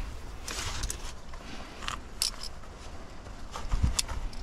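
Rustling of clothing and scattered light clicks and clinks of climbing hardware such as carabiners as gear is handled at a belay, with a small cluster of clicks near the end.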